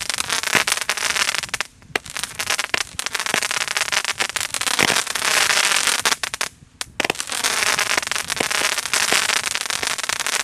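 Consumer fireworks cake firing crackling comets in its finale: a dense, continuous crackle of countless small pops, with two short lulls, about two seconds in and about six and a half seconds in.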